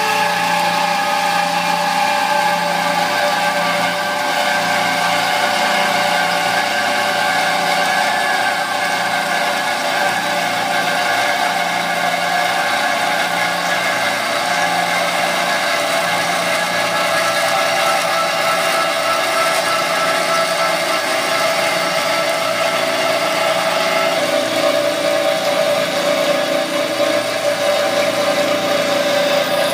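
JMT DCB-M 560 double-column band saw cutting through an 18-inch pipe: a steady machine hum with the blade's ringing tones over it, which shift slightly in pitch about three-quarters of the way through.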